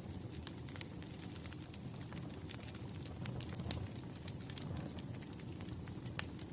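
Wood fire crackling: a steady low rumble of burning logs with many small, irregular pops and one louder pop near the end.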